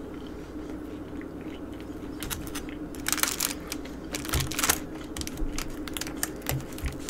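Close-up chewing of chicken wings, with scattered clicks and crinkles from a plastic fork picking through a foil-lined foam takeout box, over a faint steady hum.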